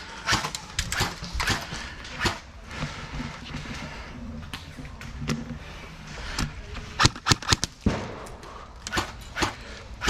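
Airsoft guns firing around the field: sharp snapping shots, single and in short bursts, with the loudest quick string of shots about seven seconds in.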